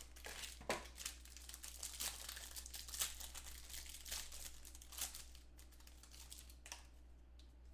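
Thin clear plastic crinkling as trading cards are pulled from their wrapping and handled. It comes as a run of short crackles that thin out over the last couple of seconds.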